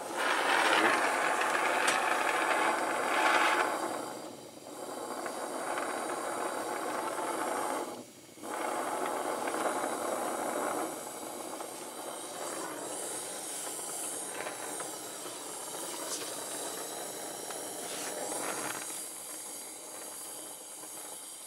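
Oxy-acetylene torch flame hissing steadily as the steel fitting is reheated for brazing. The hiss is loudest in the first few seconds, drops out briefly twice, about four and eight seconds in, and runs quieter from about eleven seconds on.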